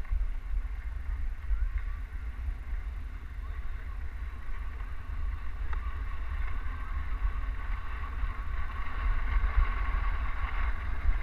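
Wind rumbling on a GoPro's microphone during a downhill ski run, over the steady hiss of skis sliding on packed snow. The hiss grows louder near the end.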